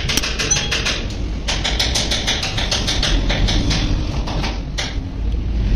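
Rapid sharp tapping, several taps a second, in two runs with a short pause between and one last tap near the end, over a steady low rumble.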